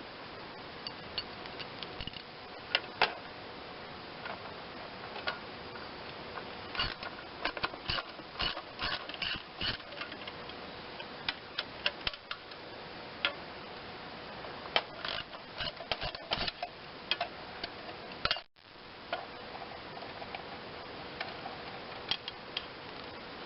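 Hand tools clicking and clinking against the metal air-cleaner and carburettor fittings of an Onan twin-cylinder engine as the fasteners are worked loose. The sharp clicks come irregularly, in clusters, over a faint steady hum.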